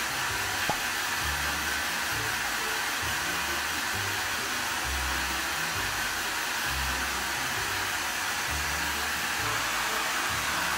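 Handheld hair dryer running steadily, blowing on a dog's wet paws, with one brief click a little under a second in.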